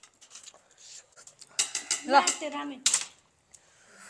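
Metal cutlery clinking and clattering against dishes at a meal, a run of short clicks. A brief voice sound cuts in about two seconds in.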